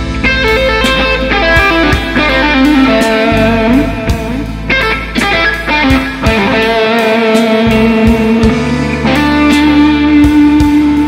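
Electric guitar playing a slow A minor blues lead, mixing pentatonic phrases with scale runs, over a backing track with bass and a steady beat. About nine seconds in, a long held note with vibrato.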